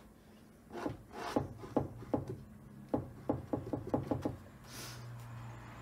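Leftover oil paint and cold wax being scraped up with a tool: a quick, irregular run of short scrapes and taps, about three a second, then one longer swish near the end.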